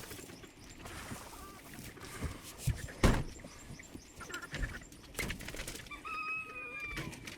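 Scattered knocks and handling noises with one loud thump about three seconds in, and a single held call about a second long near the end.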